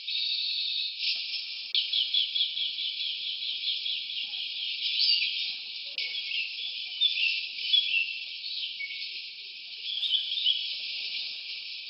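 Forest ambience: small birds chirping in quick runs of short, gliding notes over a steady high hiss, sounding thin and high-pitched throughout.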